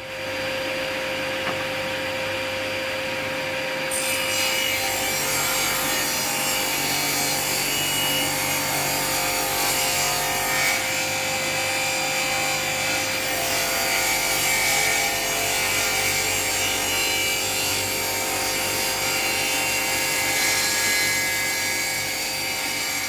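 Woodworking power tool running steadily while it cuts a wooden strip down to thickness, a steady motor hum under a dense cutting noise that turns brighter about four seconds in.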